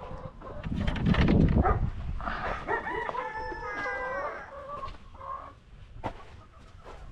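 A rooster crowing once, a drawn-out call of about two seconds, among clucking chickens. It is preceded by a loud burst of rustling handling noise.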